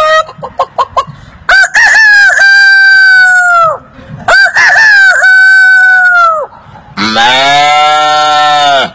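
A man imitating a rooster with his mouth: a few short clucks, then two long crows, each rising and then held before falling away. Near the end he starts a lower, drawn-out farm-animal call.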